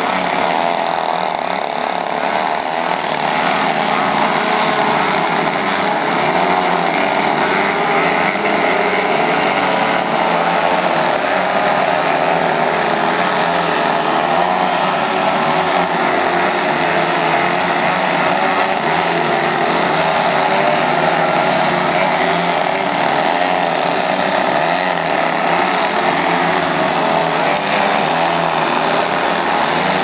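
Many large radio-control aerobatic planes hovering together, their engines and propellers running at once in a dense, steady drone of overlapping engine notes that waver in pitch as each pilot works the throttle.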